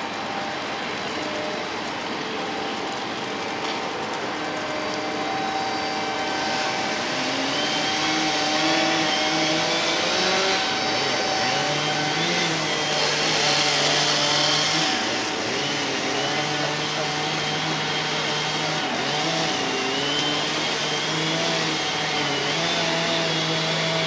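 Tree-felling machinery running: an excavator's engine and chainsaws. A steady motor hum shifts up and down in pitch as the revs change, with a wavering high whine above it.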